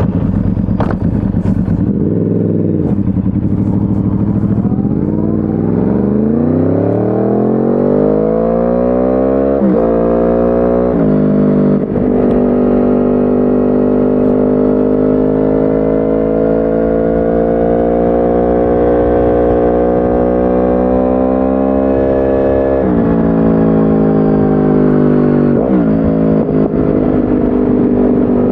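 2010 Yamaha R1's crossplane inline-four through a decat Akrapovic exhaust, heard onboard while riding. The engine climbs in pitch for several seconds, drops sharply twice in quick succession as it shifts up through the gears, then holds a steady, slowly rising note with two more sharp dips at gear changes later on.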